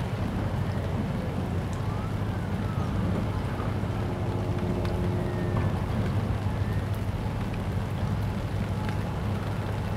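Steady low mechanical drone, an engine-like hum that holds the same pitch throughout, over a rough outdoor haze, with a few faint short gliding chirps and ticks above it.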